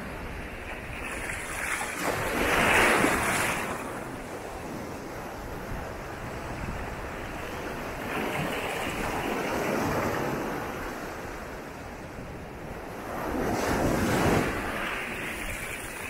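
Small ocean waves breaking and washing up the shore, coming in swells: a loud one about three seconds in, a softer one midway, and another loud one near the end.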